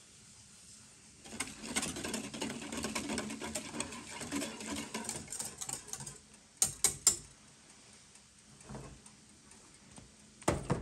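Wire whisk beating a thin mixture in an enamel saucepan: a fast, steady rattle of the wires against the pot, then three sharp clinks about six and a half seconds in, and one more sharp knock near the end.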